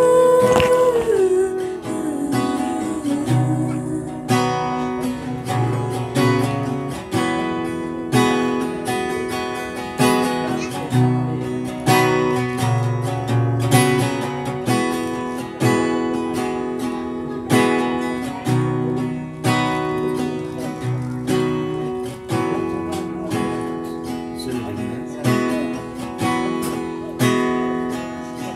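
Acoustic guitar strummed in a steady repeating pattern, a strong accented strum about every two seconds. A held note slides down in pitch at the very start.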